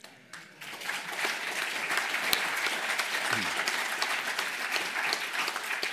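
An audience applauding. The clapping starts about half a second in and quickly builds to a steady level.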